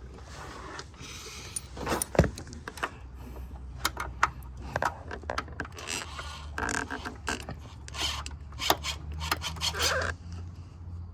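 Scattered clicks, knocks and scrapes of parts being handled and pushed into place while an intake manifold is fitted onto an engine, over a steady low hum.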